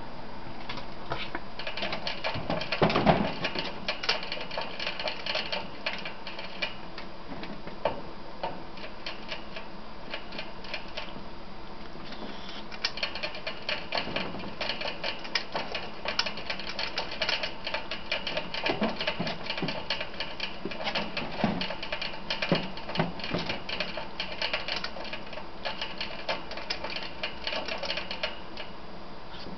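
Ferrets licking at the metal sipper tube of a cage water bottle: the tube clicks rapidly and irregularly as they drink, with a louder knock about three seconds in.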